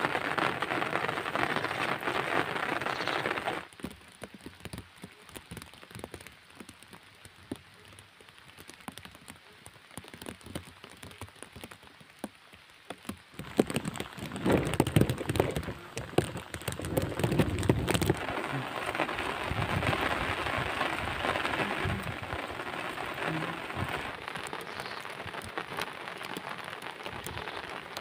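Rain falling steadily, an even hiss of drops on the field and mud. A few seconds in it drops sharply to a fainter patter of separate drops, then rises again about halfway through, with a few low thumps soon after.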